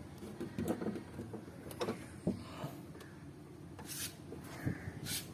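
Light clicks, knocks and scraping as the outer door handle of a 1996–99 Honda Civic is worked loose from inside the door shell, with two short scrapes near the end.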